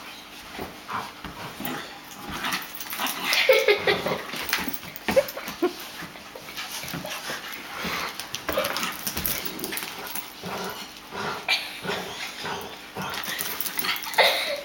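A Jack Russell terrier and a golden retriever play-fighting in a tug-of-war over a toy: short, irregular dog vocal noises mixed with scuffling. The sounds are busiest a few seconds in and again near the end.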